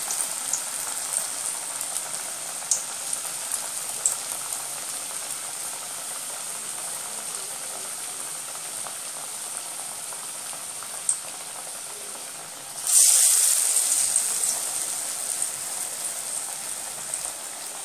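Radish and chana dal vadai deep-frying in hot oil: a steady sizzle with scattered small pops. About three-quarters of the way through, the sizzle suddenly surges as another raw patty goes into the oil, then slowly settles back.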